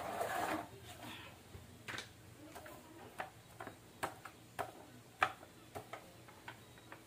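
A plastic paint tray scraping briefly as it is set down on a tiled floor, then irregular sharp clicks and taps as the paint roller is handled and loaded in the tray, roughly one or two a second.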